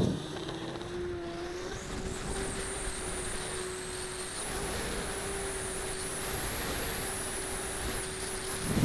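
Electric motor and propeller of a radio-controlled model plane in flight: a steady drone with a thin high whine that edges up in pitch about halfway through.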